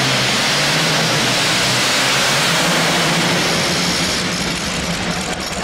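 Modified pulling tractor's racing engine running flat out under load as it drags the weight-transfer sled, loud and harsh. About four seconds in, the engine falls off as the pull ends.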